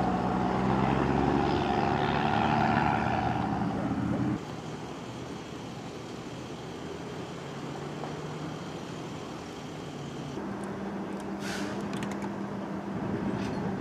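Road traffic: a pickup truck towing a trailer passes close with its engine running for the first four seconds, which then cuts off abruptly, leaving a quieter wash of passing traffic. From about ten seconds in, a steady low engine hum of idling vehicles runs under the traffic.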